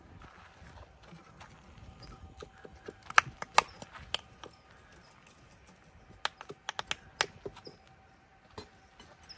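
Short, sharp metallic clicks and taps from steel rebar and tie wire being handled, in two quick clusters about three and six seconds in, with a single click near the end.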